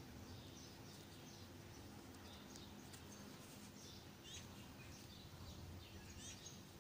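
Near silence: faint, scattered bird chirps over a low steady hum.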